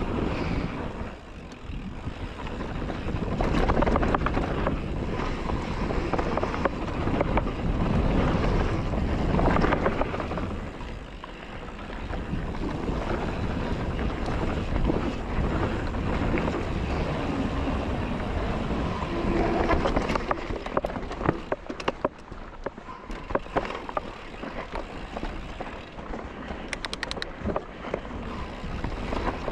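Mountain bike riding down a dirt trail: wind buffets the microphone and the tyres roll over dirt and gravel, rising and falling with speed. In the second half the bike clatters and rattles sharply over rough ground.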